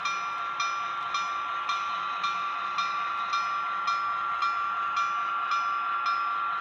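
HO scale model diesel switcher running along the track pulling hopper cars: a steady high whine with a hiss, and regular clicks about twice a second as the wheels pass rail joints.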